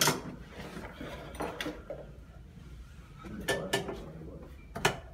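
A few scattered sharp clicks and knocks of hand tools and hardware being handled in a plastic tool tote, about a second and a half, three and a half, and five seconds in.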